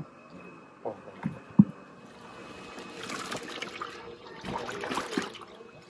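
Live tilapia splashing in water in a plastic bucket as they are netted in, with a few knocks against the bucket in the first two seconds and two bursts of splashing, about three and five seconds in.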